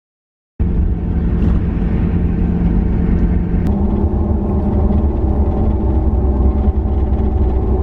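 Motor vehicle running steadily, a loud engine hum with road noise. It starts abruptly about half a second in, and its tone changes a few seconds later.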